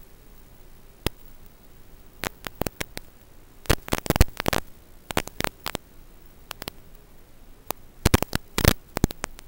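Hiss and static from an analog FPV video receiver's recording, broken by loud crackling pops that come in clusters, densest about four seconds in and again near the end, over a faint wavering hum.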